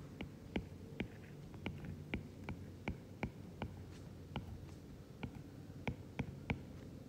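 Stylus tip tapping and briefly dragging on an iPad's glass screen while handwriting, a sharp irregular click at each stroke, about two a second, over a low steady hum.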